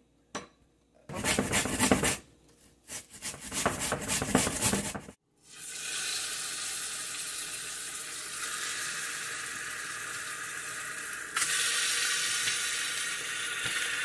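Loud scraping and clattering of kitchen utensils for a few seconds, then steady sizzling as pieces of lamb sear in hot oil in a stainless steel pot, the sizzle growing louder about three-quarters of the way through.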